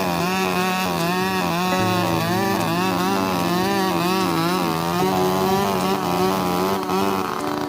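Two-stroke chainsaw running continuously while cutting wood, its engine pitch wavering up and down as the load on the chain changes.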